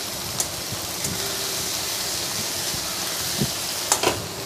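Chopped vegetables sizzling in hot oil in a steel wok, with a few sharp clicks of the spatula against the pan, once early and twice about four seconds in.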